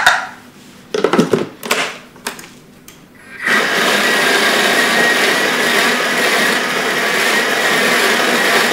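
A few short knocks, then about three and a half seconds in a Thermomix starts up and runs steadily with a high whine, blending the tomato pesto of dried tomatoes, pine nuts and olive oil to work in the added Parmesan.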